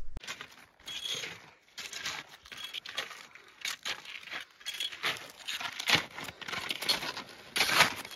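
Touring skis with climbing skins scraping and crunching over firm, icy snow, one scrape with each uneven stride, about one or two a second, the loudest near the end.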